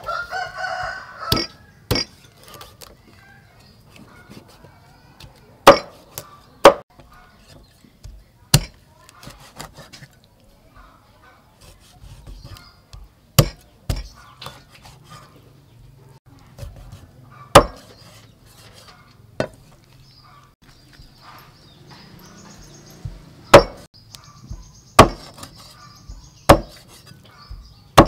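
Meat cleaver chopping a whole fish into chunks on a round wooden chopping board: about a dozen sharp single chops, spaced irregularly a second to several seconds apart, each blow going through the fish into the wood.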